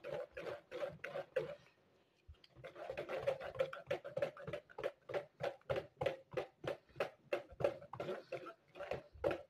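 Wire whisk beating thick besan batter in a plastic bowl, about four strokes a second, with a short pause about two seconds in. The batter is being beaten in one direction to work air into it and make it fluffy for boondi.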